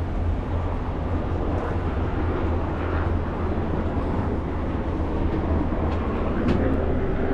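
Ferry's diesel engine running with a steady low rumble, under a wash of harbour noise.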